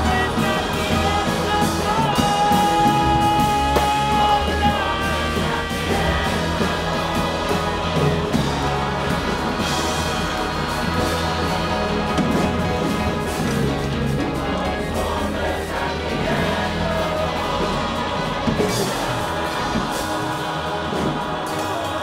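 Live indie rock with choir and string orchestra: electric guitar, drums and cellos under a choir singing long, sustained chords.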